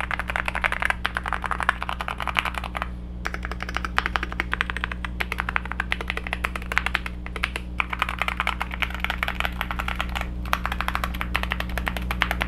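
Fast typing on a Weikav Stars80 mechanical keyboard with Akko Rosewood linear switches and blank keycaps: a dense run of soft key clacks, described as creamy, with a short pause about three seconds in. A steady low hum runs underneath.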